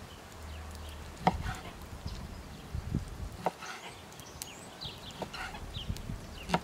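Chef's knife cutting raw lamb on a wooden cutting board, the blade knocking sharply on the board a few times: about a second in, around three and a half seconds, and again at the end. Faint bird calls in the background.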